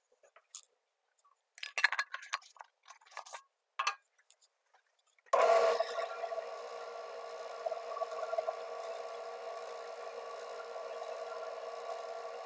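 A few light rubs and clicks as a cloth and jar are handled at a wood lathe. About five seconds in, the lathe starts abruptly, the loudest moment, then runs with a steady hum while a finishing cloth is held against the spinning walnut handle.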